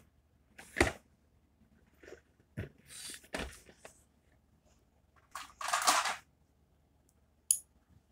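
A small cardboard toy-car box being handled by hand: a few knocks and scrapes, then a longer rustling scrape about six seconds in and a brief sharp click near the end.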